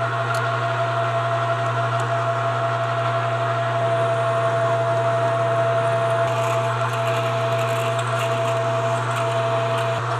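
Metal lathe running steadily while a twist drill in the tailstock chuck bores into the spinning metal bar, a constant hum with a steady whine over it.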